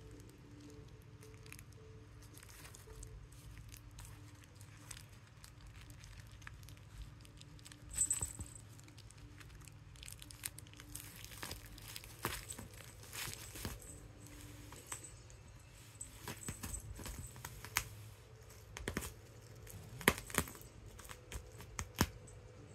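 Plastic bubble wrap crinkling and crackling as a cat paws and bats at it while it is held, with scattered sharp clicks that come thicker and louder in the second half.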